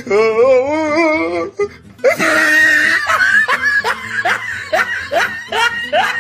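A wavering, warbling tone for about a second and a half, then a long run of loud laughter in quick rising ha-ha bursts, a few a second.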